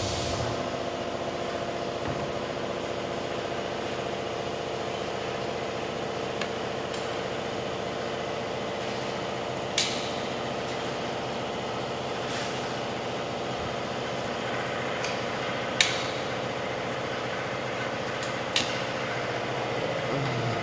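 Acrylic sign-letter forming machine running with a steady, even hum, and a few short sharp knocks as the acrylic sheet and the machine are handled.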